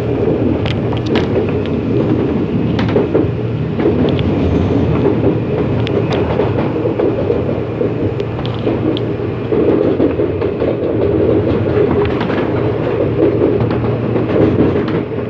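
A CAF-built CPTM Series 8500 electric multiple unit running on the rails, heard from inside the car: a steady, heavy rumbling drone with scattered wheel clicks over the track.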